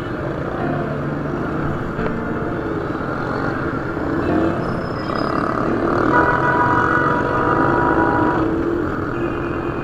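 Road and traffic noise heard from a Honda 70cc motorcycle riding through city streets: a steady mix of engine and traffic sound. A held tone, like a vehicle horn, sounds for about three seconds past the middle.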